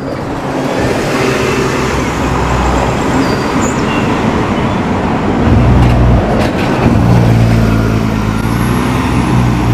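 Three buses driving past close by: a loud traffic rumble, with a deeper engine drone setting in about five and a half seconds in.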